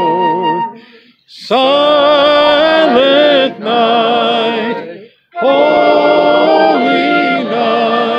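Church choir singing a Christmas carol unaccompanied, in phrases broken by short pauses for breath.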